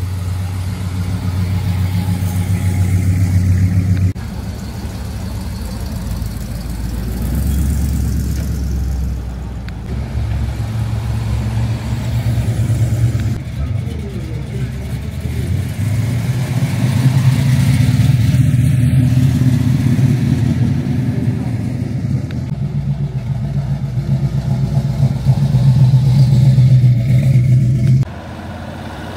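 Car engines running nearby, a deep rumble that rises and falls in pitch as the vehicles move off. The sound changes abruptly about four seconds in and again near the end.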